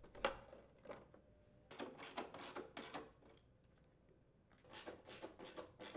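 Faint, scattered clicks and knocks from hand work on a lawn mower: the plastic belt shield being fitted against the deck and its bolts secured, in several short clusters with quiet gaps between.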